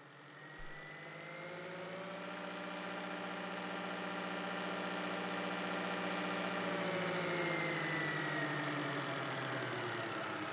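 A low droning sound-design pad of several held tones that fades in from silence over the first couple of seconds and then holds, some of its tones slowly bending up and later down in pitch.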